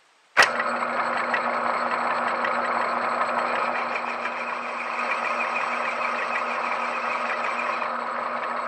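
Atlas 618 metal lathe switched on with a click about half a second in, then running steadily as it spins the chucked shear bolt for the first relief groove. It cuts off near the end.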